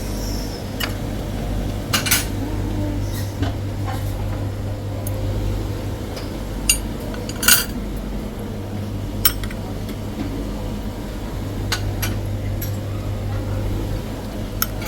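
Dishes and cutlery clinking, with scattered sharp knocks of serving utensils against plates, over a steady low hum.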